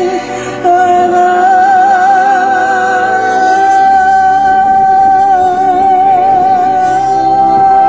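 Woman singing live into a microphone over a backing track, through stage speakers, holding one long note with vibrato from about a second in. The deep low end of the backing comes in about four seconds in.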